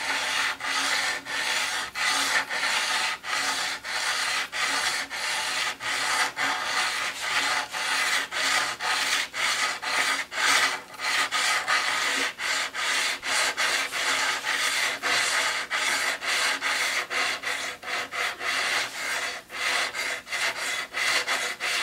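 Blue 45-micron diamond paddle hone stroked back and forth along the steel blade of a guillotine paper cutter, a gritty rasping rub at about two to three strokes a second. It is hand-sharpening the blade flat along its factory grind.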